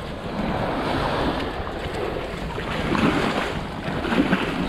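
Small surf waves washing up and draining off a sandy beach, with wind buffeting the microphone.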